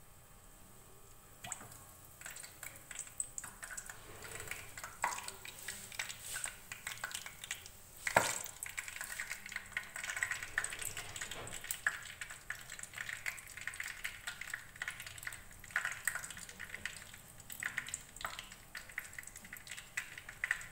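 Breaded potato cutlets frying in oil on a low flame: an irregular crackle and popping that sets in about a second and a half in, with one sharp knock about eight seconds in.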